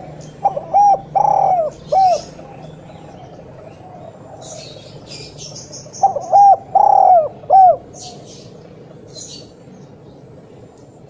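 Spotted dove cooing loudly: two phrases about five seconds apart, each of four coos with a longer third note. Faint high chirping sounds behind them.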